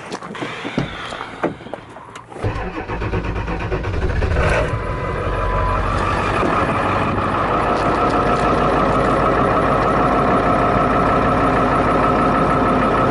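A few clicks and knocks, then a vehicle's engine starts about two and a half seconds in and settles into a steady idle. A brief single tone sounds a couple of seconds after the start.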